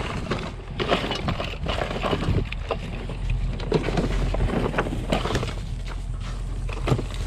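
Hands rummaging through a trash bin: plastic items, foam and coiled bungee cords knocking, clicking and rustling irregularly as they are pushed aside, over a steady low rumble.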